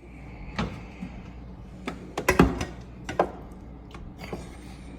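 Several separate knocks and thunks of things being handled, the loudest cluster about halfway through, over a steady low hum.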